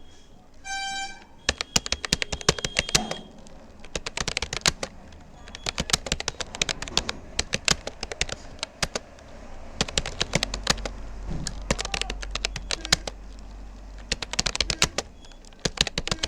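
Fast typing on a Rapoo computer keyboard: rapid keystroke clicks in bursts with brief pauses between words. A short pitched beep sounds about a second in.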